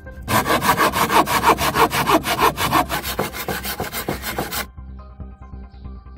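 Hand pruning saw with a curved toothed blade cutting through a wooden pallet slat in quick back-and-forth strokes, about five a second, stopping abruptly about three-quarters of the way through. Background music plays under it.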